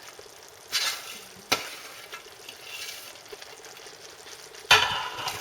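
A minced-pork and tomato meat sauce sizzling softly in a pan while it is stirred, with a sharp knock about a second and a half in and a louder burst of stirring near the end.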